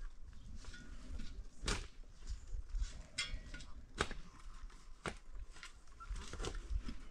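Faint outdoor ambience with a low rumble, a few sharp clicks and knocks spread through it, and a brief fast chirping trill about three seconds in.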